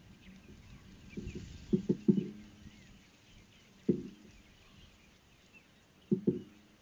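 Irregular hollow knocks, some in quick pairs, over faint high chirping of birds.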